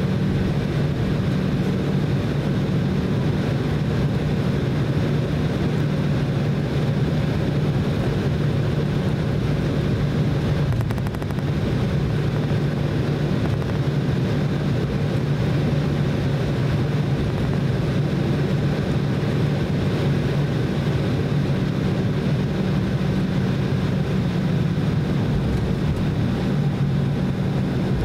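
Cabin noise of an Embraer E190 airliner taxiing: its GE CF34-10E turbofan engines running as a steady low hum over a rumbling background. The level dips slightly for a moment about eleven seconds in.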